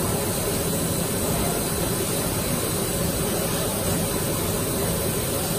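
PE extrusion casting film lamination machine running: a steady, even mechanical hum with hiss from its rollers and drives.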